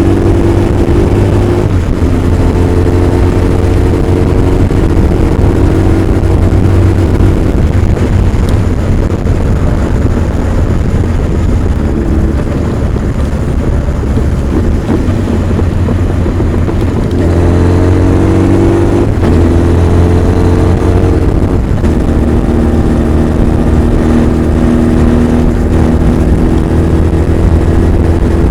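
Honda CB1300 Super Bol d'Or's inline-four engine and exhaust under way, the engine note holding steady, then rising under acceleration and dropping at upshifts, about two seconds in and again after the climb near the middle.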